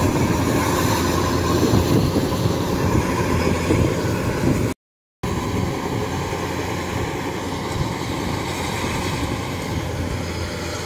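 Kubota DC-93 combine harvester's diesel engine running steadily under load as it cuts and threshes rice, a dense mechanical clatter and hum. The sound cuts out for about half a second about five seconds in.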